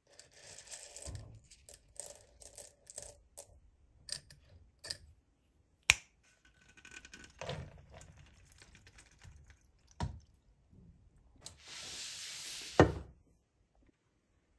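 Dry elbow macaroni rattling and clinking as it is handled in a glass jar and poured into a pan, with a few sharp knocks among it and a hissing pour ending in a loud thump near the end.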